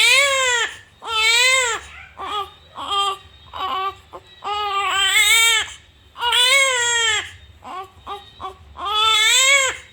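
Infant crying from hunger: repeated high wails, each rising and falling over about half a second to a second, with shorter catching cries between them.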